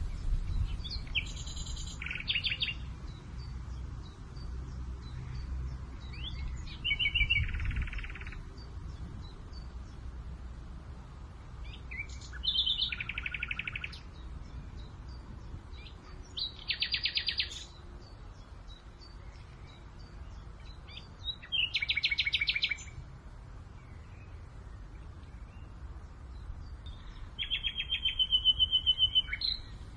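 Songbirds singing short trilled phrases, six in all, spaced a few seconds apart, over a low wind rumble that is strongest in the first several seconds.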